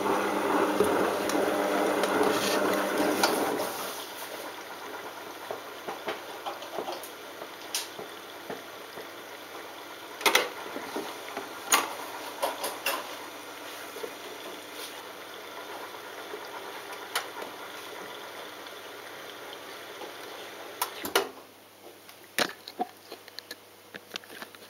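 Balay T-8295 front-loading washing machine at the end of its cycle. A steady pitched motor hum stops about four seconds in, leaving water gurgling and trickling inside the machine with occasional sharp clicks. A louder knock comes near the end, and after it the machine goes quieter.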